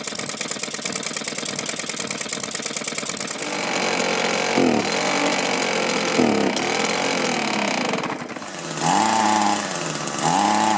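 Small two-stroke engine running, then revved about four times, each rev rising and falling back. The engine won't throttle up to run at high speed, and its carburettor can't be adjusted to fix it.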